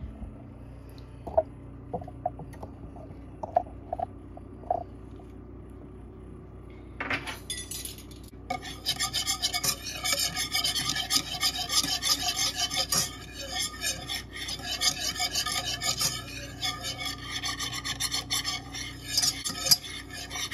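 Wire whisk scraping rapidly and steadily against the bottom of a nonstick saucepan, stirring butter cubes in lemon juice. For the first several seconds there are only a few light clicks; the whisking starts about seven seconds in.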